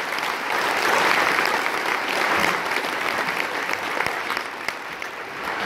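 Audience applauding, many hands clapping together, easing off slightly toward the end.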